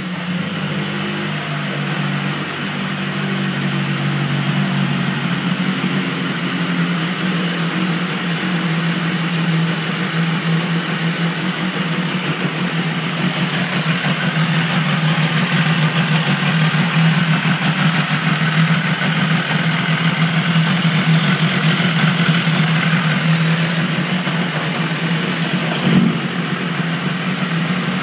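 BMW S1000RR inline-four engine idling steadily in neutral. The idle is rough, which the owner suspects comes from bad oxygen sensors in the warranty replacement exhaust. A single short knock sounds about two seconds before the end.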